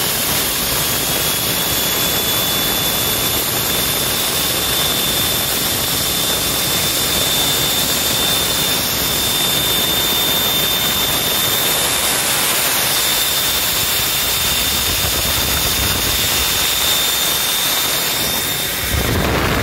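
2009 Cummins ISB 6.7L inline-six diesel engine running steadily on a test run, with a steady high whine over the engine noise; the whine stops near the end.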